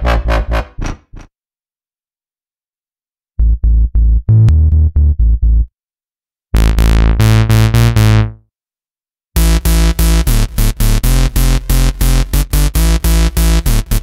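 Viper software synthesizer (an Access Virus emulation) playing bass presets: short phrases of rapid, staccato bass notes, separated by brief silences as the preset changes. In one phrase, about 7 s in, the bright top of the sound falls away as the filter closes, and a fast steady run of notes starts about 9 s in.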